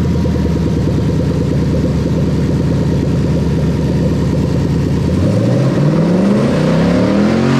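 Lexus 1UZ-FE VVT-i 4.0-litre V8 running loud with no exhaust fitted. It idles steadily, then is revved up about five seconds in, its pitch climbing to the end.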